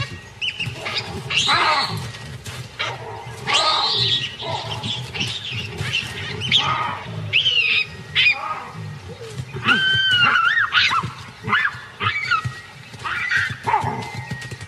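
Baboons screaming in a fight: many short, high shrieks and squeals that rise and fall, some overlapping, coming in quick bouts throughout.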